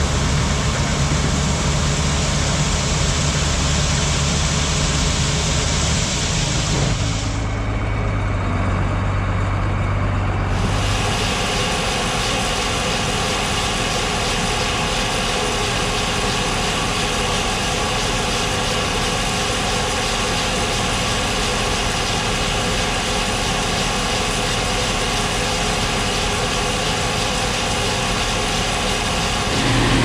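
Farm machinery running steadily: first a combine's unloading auger pouring shelled corn into a grain cart, then, after a change about seven to eleven seconds in, the six-cylinder diesel of a John Deere 4040 tractor running at a steady speed to drive a grain auger loading corn into a bin.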